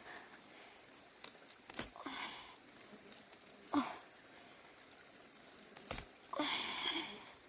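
Rustling and crinkling of leafy melon vines being handled, with four sharp knocks or snaps scattered through. The longest rustle comes near the end.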